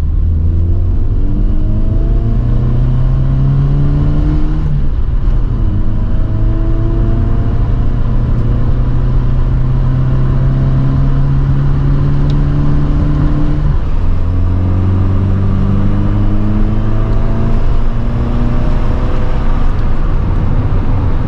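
MG Metro's 1275 cc A-Series four-cylinder engine, with the gearbox in the sump, pulling hard up through the gears. The engine note rises steadily, drops at gearchanges about five and fourteen seconds in, then climbs again.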